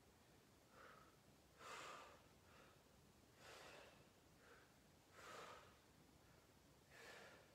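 Faint, rhythmic breathing of a person straining through a reclined core exercise hold: short breaths in and out about one a second, every other one stronger.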